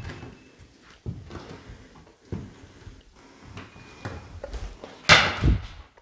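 A series of dull knocks and thuds, roughly a second apart, with the loudest and longest one about five seconds in.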